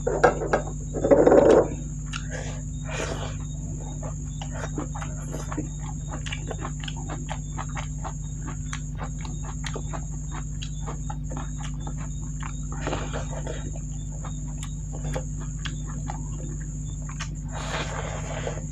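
Eating by hand: fingers mixing and squishing rice with vegetable curry on a plate, with a louder scraping squish about a second in, then chewing and lip-smacking heard as many small wet clicks.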